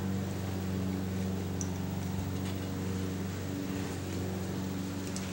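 Steady low motor hum at a constant pitch.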